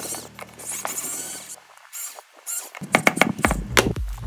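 Rapid high-pitched squeaking over a soft, sustained music tone. The tone stops, and after a short pause a music track with a heavy beat and sharp clicks starts near the end.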